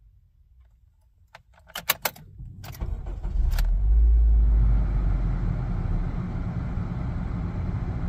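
A few clicks from the key in the ignition, then the 2007 Honda Civic's engine starts. It runs at a raised idle for a couple of seconds, then settles to a steady idle that is much more smooth now that the cylinder 2 misfire has been worked on.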